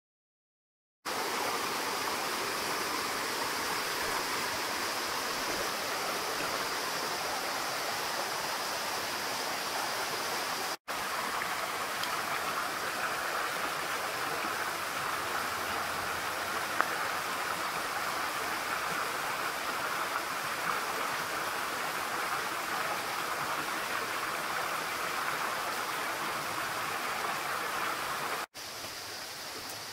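Steady rush of a shallow stream flowing over rocks and gravel, starting about a second in and cut off twice for an instant.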